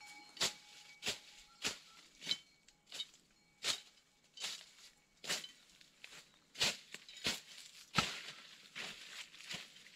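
A steady series of short crunching strikes, about three every two seconds, the way footsteps or tool blows sound on leaves and wood.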